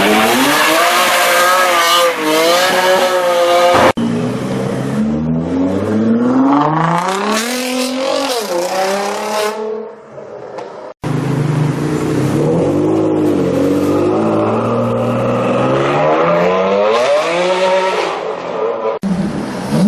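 Jaguar F-Type R's supercharged V8 revving hard and accelerating, its pitch climbing and dropping, heard in three short back-to-back clips with abrupt cuts between them.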